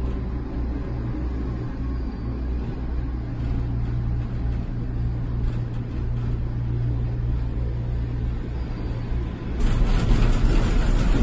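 Gondola cable car cabin gliding along its haul rope with a steady low drone. A little over nine seconds in, it turns suddenly louder and rattly as the gondola rolls into the station.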